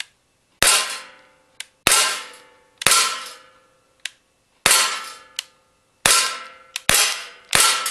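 Seven air pistol shots from a CO2 blowback pellet pistol, each a sharp crack followed by a ringing metallic decay, typical of pellets striking a steel pellet trap, at uneven intervals of roughly one to two seconds.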